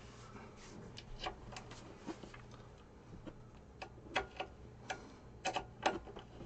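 Scattered light clicks and taps at irregular intervals, loudest and most frequent between about four and six seconds in: hands and tools handling 3D printer frame parts and screws during assembly.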